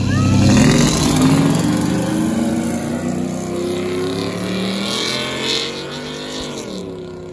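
A vehicle engine revving up as it accelerates, its pitch climbing over the first few seconds. Near the end the pitch drops sharply and it settles to a steady lower note as it lets off.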